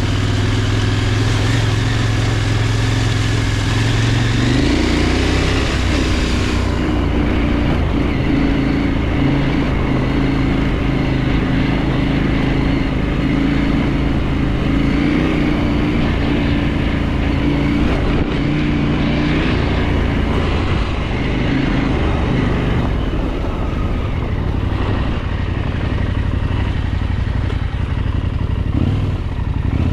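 KTM 890 Adventure R's parallel-twin engine running under way, its note rising about four seconds in as the bike accelerates, then holding steady.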